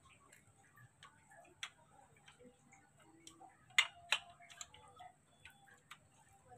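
Light plastic clicks and taps as a curved white tube is worked into the grey plastic hinge brackets of a baby swing frame. Two sharper clicks come close together about four seconds in.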